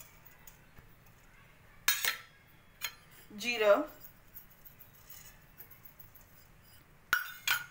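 Fennel seeds poured from a small steel bowl into a dry nonstick frying pan, with sharp metallic clinks of the bowl against the pan about two seconds in and again near the end.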